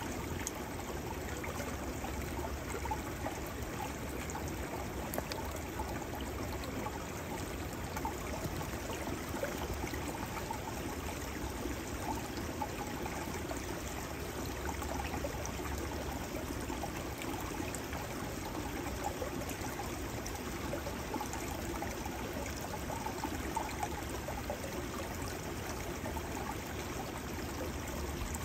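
Small, shallow woodland stream of snowmelt flowing steadily, its water running and trickling with an even, unbroken sound.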